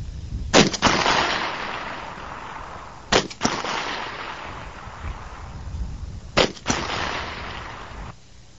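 Three shots from an M82A1A .50-calibre semi-automatic rifle, about three seconds apart. Each is a sharp double crack followed by a long fading echo. The sound cuts off abruptly near the end.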